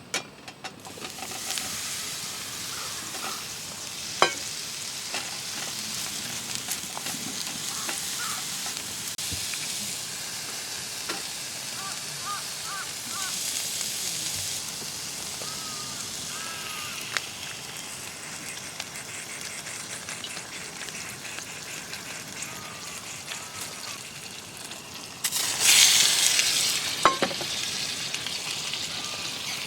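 Food sizzling in a frying pan, a steady hiss with scattered sharp clicks. The sizzle suddenly gets much louder for a couple of seconds near the end.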